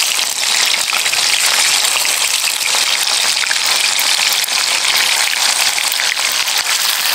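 Spotted doves deep-frying in hot oil: a loud, steady sizzle with fine crackling all through.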